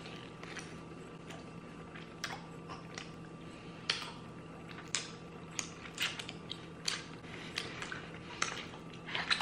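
Clear plastic candy wrapper crinkling as it is handled, giving short sharp crackles at irregular intervals, roughly one or two a second, over a faint steady hum.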